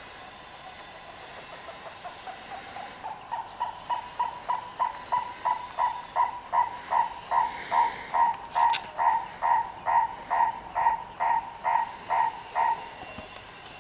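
A bird calling: a long series of short notes on one pitch, about two a second, growing louder over the first few seconds and stopping shortly before the end. A steady hiss runs underneath.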